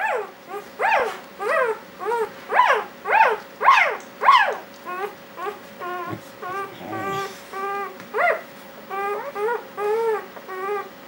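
A two-day-old Dalmatian puppy crying for its mother after straying from her side: repeated short squealing cries, about two a second, high and loud at first, then softer and lower from about halfway.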